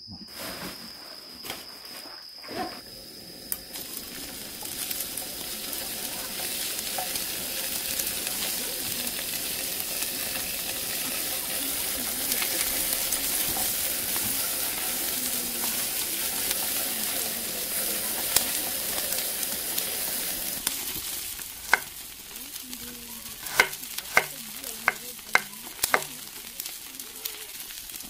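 Food sizzling in a camping pot over a gas stove, a dense steady hiss that stops about three-quarters of the way through. Then a string of sharp clicks and knocks.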